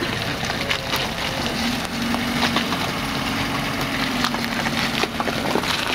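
Lada Niva's four-cylinder petrol engine idling steadily, with scattered light clicks and knocks.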